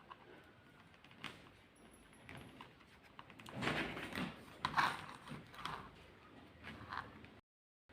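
Handling noise of small objects: scattered light clicks and taps, with a busier stretch of knocking and rustling in the middle. The sound cuts out completely for a moment near the end.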